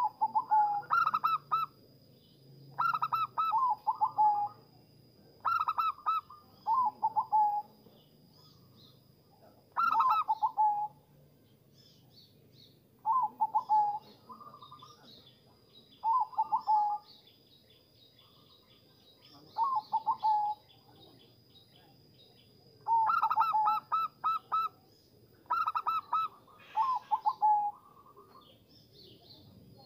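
Zebra dove (perkutut) cooing: short phrases of rapid staccato coos, one every two to three seconds. A faint steady high whine runs underneath.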